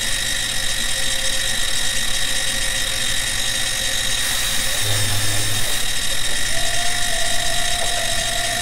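CNC-converted benchtop milling machine with its spindle running at a steady high whine while an end mill cuts a counterbore pocket in a metal part by circular interpolation. About two-thirds of the way through, a second, lower steady whine comes in.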